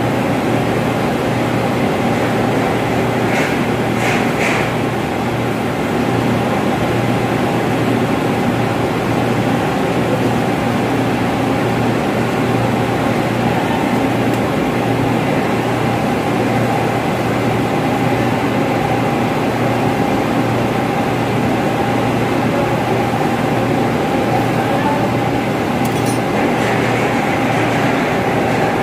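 Steady drone of running air-handling fan machinery: an unchanging hum with a higher steady tone over it, with a couple of faint brief scrapes from the wiring work about four seconds in and near the end.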